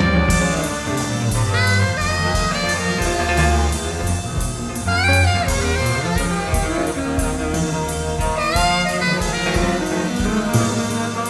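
Small jazz group in free, harmolodic style: alto saxophone playing fast phrases with bent and sliding notes over walking acoustic bass and drums keeping time on the ride cymbal.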